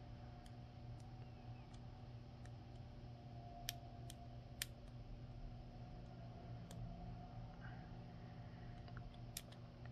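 Faint, scattered metallic clicks of a hook pick and tension wrench working the pin stack of a brass euro-profile cylinder lock, with two sharper clicks around the middle, over a low steady hum.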